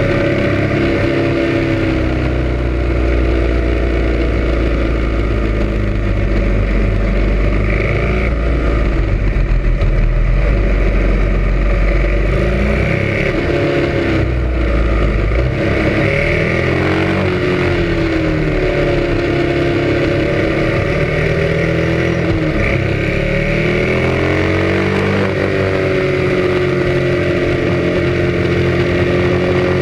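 Motorcycle engine running under way, its pitch rising and falling repeatedly as the rider accelerates and eases off through a run of curves.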